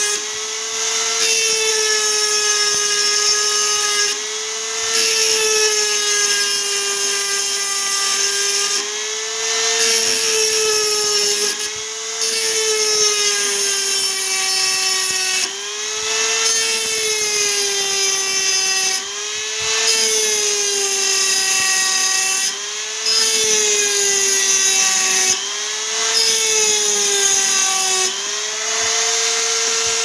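Handheld rotary tool running with a steady high whine, its small grinding bit cutting serration notches into a steel knife blade. The grinding hiss breaks off for a moment every three or four seconds as the bit comes off the blade between notches, and the motor's pitch dips slightly while it grinds.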